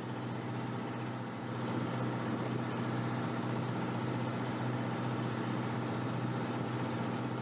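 Steady low hum of a tugboat's engine running, getting a little louder about a second and a half in.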